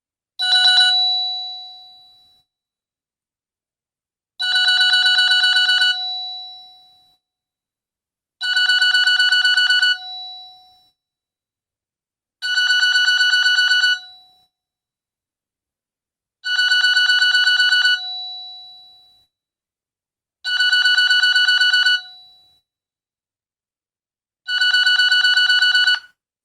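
Nokia 225 4G's 'Clock 1' alarm tone: a bright, rapidly pulsing ring lasting about a second and a half. It repeats every four seconds with silence between, seven times in all, the first burst shorter.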